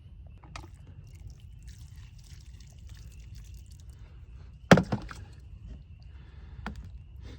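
A single sharp knock about two-thirds of the way in, over a steady low rumble with faint scattered crackles and small clicks.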